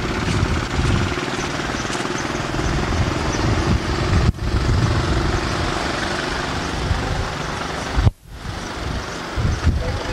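Steady engine drone with a fast, even chopping rhythm, broken by two brief dropouts about four and eight seconds in.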